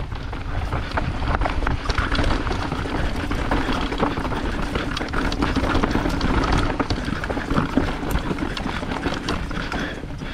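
Nukeproof Giga mountain bike ridden over rough singletrack: tyres rolling over dirt and rocks with frequent rattles and knocks from the bike, under a steady low rumble of wind buffeting the camera's microphone.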